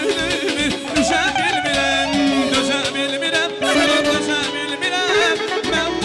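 Live Azerbaijani wedding-song medley: a man sings an ornamented melody into a microphone over an amplified band of synthesizer keyboard and accordion with a steady beat.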